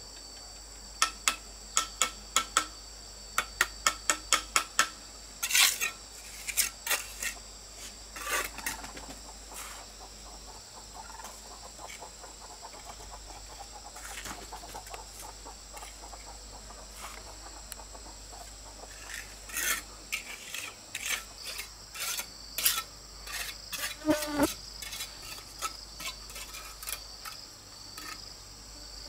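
Steady high-pitched insect chorus. About a second in comes a quick even run of about a dozen sharp taps, and irregular taps and clinks of hard objects follow, bunching again from about twenty seconds in.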